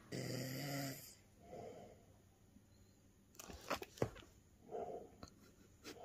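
A man snoring in his sleep: one longer snore at the start, then fainter breaths a few seconds apart, with a few light clicks around the middle.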